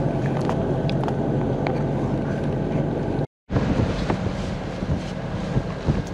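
A Gulfstar 40 sailboat's inboard diesel engine running steadily under way. About halfway through, the sound cuts out for a moment, and afterwards wind buffets the microphone over the engine.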